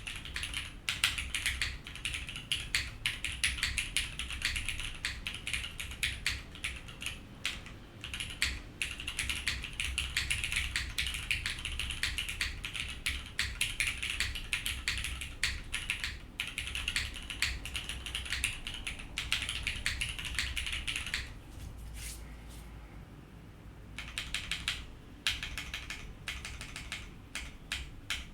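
Fast, continuous typing on a tenkeyless mechanical keyboard with linear Cherry MX Black switches, a PEI plate and GMK doubleshot ABS keycaps. The typing pauses briefly about three-quarters of the way through, then resumes.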